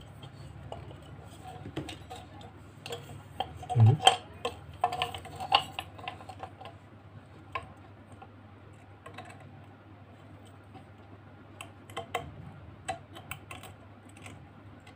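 Scattered small clicks and taps of a porcelain lampholder being pressed into a metal desk-lamp shade and its cord handled, bunched about three to six seconds in and again near the end.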